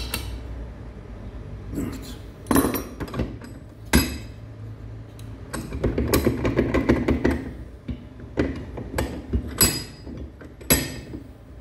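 Metal hand tools and engine parts clinking and knocking on a workbench during moped engine assembly: a series of sharp clanks, with a run of rapid rattling clicks around the middle.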